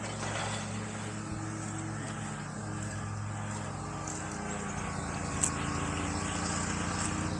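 Lawn mower engine running with a low, steady drone.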